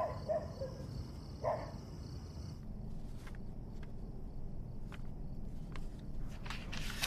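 Night insects, crickets, chirping steadily, with two short faint calls, until about two and a half seconds in. Then a quiet room with a few faint paper rustles as contract pages are turned.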